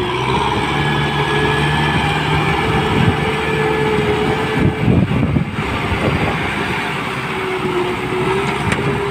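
Kubota M6040SU tractor's diesel engine running steadily under heavy load while bogged down in deep mud, pulling a loaded trailer. A few knocks come about five seconds in.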